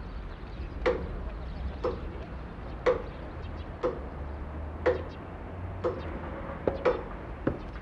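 Church tower clock movement ticking: one sharp tick about every second, each with a short ring, with a couple of extra uneven clicks near the end.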